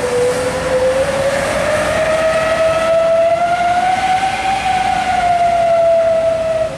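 Heavy box truck moving through a bend with a steady whine that slowly rises in pitch, then eases back a little near the end, over road traffic noise.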